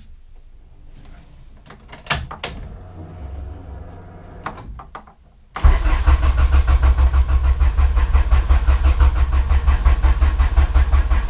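A few light clicks, then about five and a half seconds in a Honda B18C Integra Type R four-cylinder engine begins cranking on the starter motor with an even pulsing beat and does not fire. It won't catch because the distributor is unplugged, so there is no spark.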